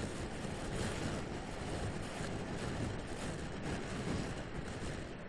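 Steady wind rush on the microphone and road noise from a motor scooter ridden at dual-carriageway speed, a dense even roar with no distinct engine note.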